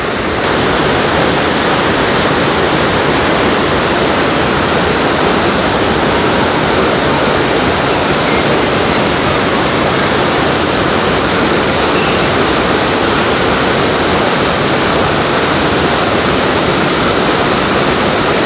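The Rhine Falls, a large waterfall, thundering in a loud, steady rush of falling water.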